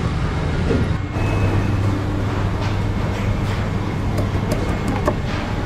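Steady low hum of background machinery with even noise. From about the middle on come a few faint clicks and scrapes as a knife cuts into a whole cobia behind its gills.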